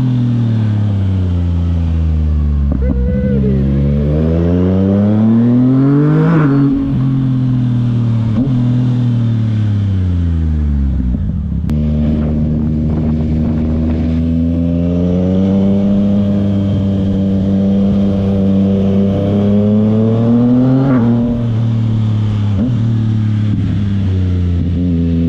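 Yamaha MT motorcycle engine on the move, revs rising and falling with the throttle. The pitch sinks at first, climbs to a peak about six seconds in and drops sharply, then falls away to low revs around eleven seconds in. A single sharp exhaust pop comes just after that. The engine then holds steady and climbs to another peak about twenty-one seconds in before dropping sharply again.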